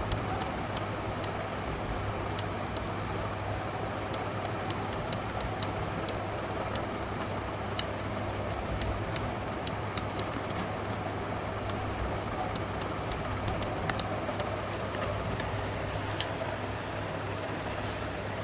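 A computer mouse button clicking repeatedly and irregularly, dozens of short sharp clicks, some in quick pairs, over a steady low hum.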